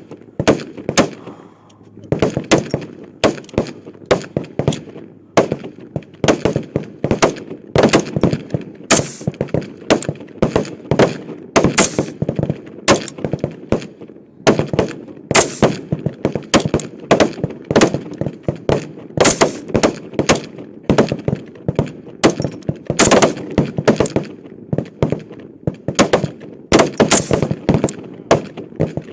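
Rifle shots from many service rifles firing along a line at once, sharp cracks coming irregularly several a second and often overlapping: a timed rapid-fire string of high-power rifle competition.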